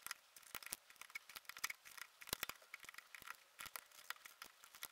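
Faint, irregular little plastic clicks and taps as small jumper caps are pushed by hand onto the header pins of a RAMPS 1.4 board.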